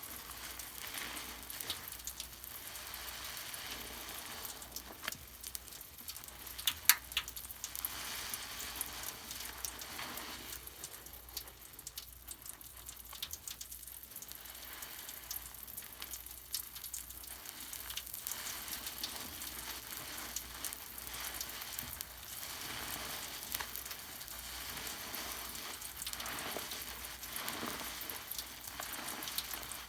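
Foam from purple Pinalen cleaner crackling and fizzing as its bubbles pop: many fine ticks over a steady hiss, with one louder click about seven seconds in.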